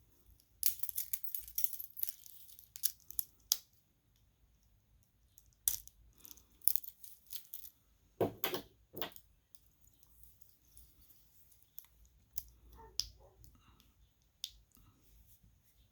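Metal watch bracelets and their fold-over clasps being handled, opened and snapped shut: scattered clicks and light metallic jingling, with two heavier knocks a little past the middle.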